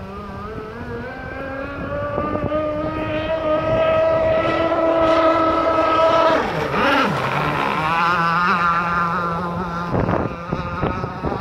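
Radio-controlled gas speedboat's two-stroke engine with a tuned pipe running at full throttle, its note climbing in pitch and loudness as the boat approaches. About six and a half seconds in the pitch drops sharply as the boat goes by, then runs on lower with a warbling upper note.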